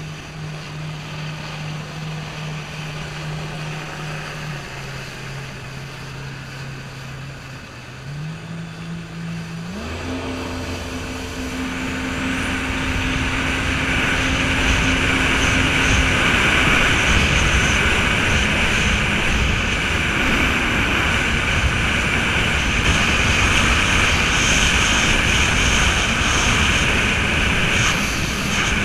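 Jet ski engine running slowly with a steady low hum that dips and comes back up, then throttling up about ten seconds in, its pitch jumping higher. From there it runs at speed under a loud rush of wind and water spray.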